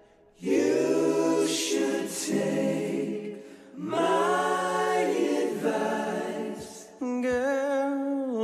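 Song with layered, choir-like a cappella vocals: two long held chords of harmonised voices, each about three seconds, with a short gap between. Near the end a voice with a wavering vibrato comes in.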